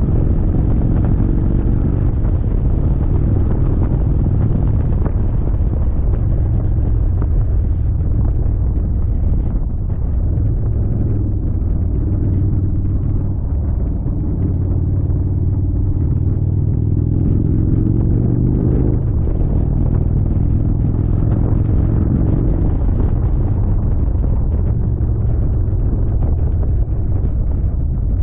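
Indian Chieftain motorcycle's V-twin engine running on the move under a steady, heavy rumble of wind and road noise, its note rising and falling with the throttle, climbing most clearly about two-thirds of the way through.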